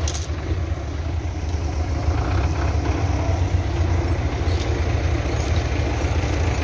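Diesel tractor engine idling steadily, a low even rumble.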